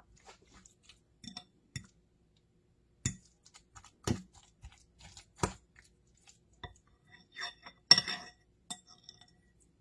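Scattered clinks and taps of a utensil against a dish, a handful of them sharper, the loudest about eight seconds in.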